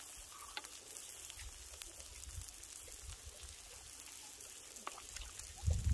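Meat and garlic sizzling faintly on a hot soapstone griddle, a steady hiss dotted with tiny pops of spattering fat. A low rumble comes in near the end.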